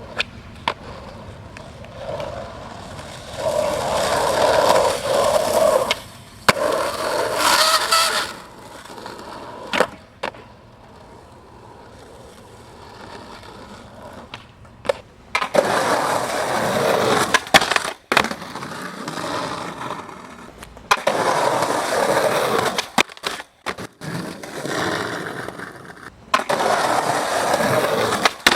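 Skateboard wheels rolling over pavement in several runs, broken by sharp clacks of the board popping and landing.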